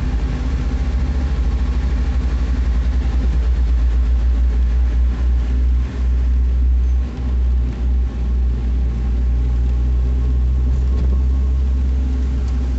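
Car cabin noise while driving: a loud, steady low rumble of engine and road, fluttering in the first few seconds and dipping briefly a few times in the middle.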